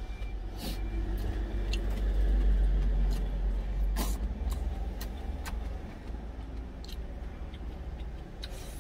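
Low motor-vehicle engine rumble that swells about a second and a half in and eases off after about four seconds. A few sharp clicks of a metal spoon against a plastic food container sound over it.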